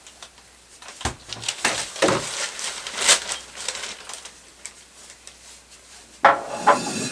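Kitchen clatter: scattered light clicks and knocks of breakfast things and newspaper pages being handled, then a louder clack about six seconds in as a ceramic mug is set down on the tiled table.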